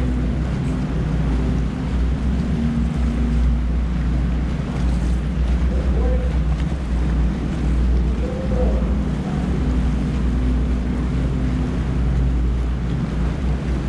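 Bass boat's outboard motor running at low speed, a steady low rumble, with water slapping the hull and wind buffeting the microphone.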